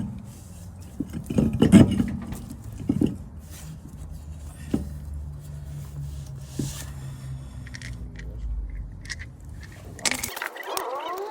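Metal clinks, knocks and scrapes of brake parts and tools being handled during a front brake pad change, over a steady low hum. Near the end the hum cuts off and short rising chirps take over.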